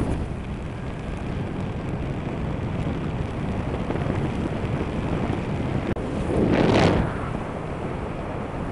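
Wind rushing over the microphone while flying under a tandem paraglider, a steady low rumble that swells into a louder gust about two thirds of the way through.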